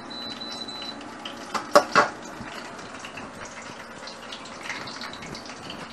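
An induction cooktop beeps as its control button is pressed, then kitchenware gives two or three sharp clanks, followed by faint clatter at the sink.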